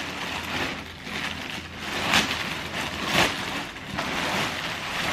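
Parcel packaging rustling as it is handled and opened, with two louder bursts about two and three seconds in.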